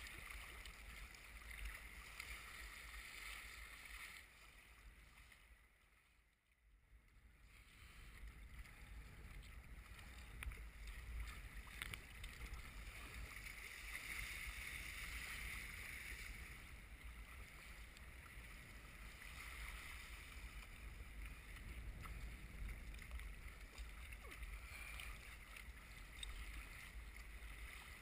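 Wind noise on the microphone in strong wind, over the steady rush and splash of choppy water along an Eddyline Raven sea kayak's hull. The sound falls away almost to nothing for about a second a quarter of the way in, then returns.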